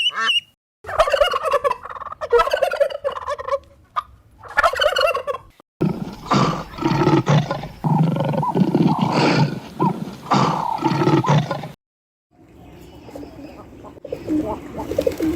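Domestic turkeys gobbling, rapid stuttering calls, over several short clips split by brief silent cuts. The loudest stretch is a dense chorus in the middle. About twelve seconds in it cuts to a quieter, different clip.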